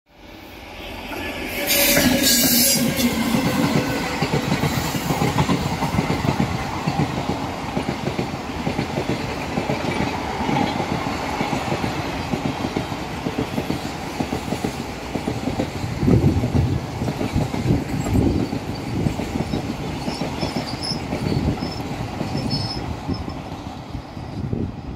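Long-distance passenger train of ICF coaches passing at speed close by. There is a loud rush about two seconds in, then a steady clatter of wheels over the rail joints with repeated knocks, easing off near the end.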